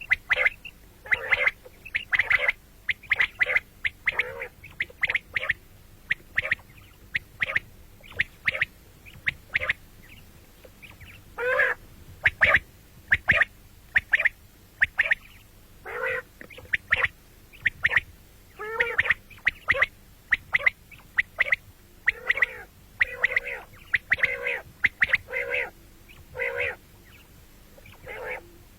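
Common quail calling: short, harsh calls given singly and in quick clusters, with short pauses between.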